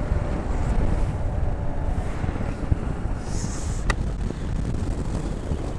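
Wind buffeting the microphone: a steady low rumble, with a single sharp click about four seconds in.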